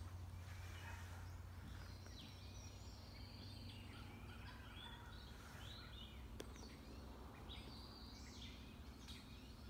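Faint outdoor ambience: a steady low rumble under scattered short, high-pitched bird calls that come and go from a few seconds in.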